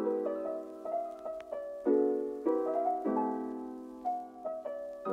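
Background music: a gentle piano tune, with chords struck every second or two and left to ring under a simple melody.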